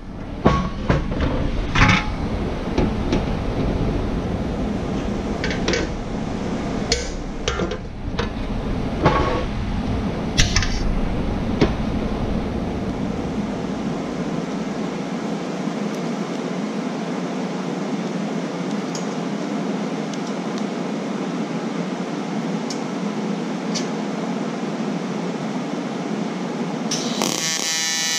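Pause between TIG welds on aluminium diamond plate: a steady hiss with scattered clinks and knocks of handling in the first twelve seconds. About a second before the end the TIG arc strikes again with a buzzing hum.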